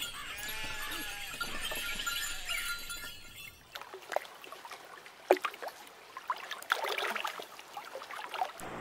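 Young children's voices chattering and giggling for about three and a half seconds, then a quieter stretch of scattered short chirps and clicks, with one sharp click midway.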